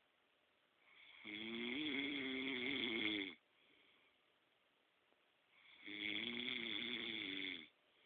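A man snoring in his sleep: two long, buzzing snores, each about two seconds, roughly four and a half seconds apart.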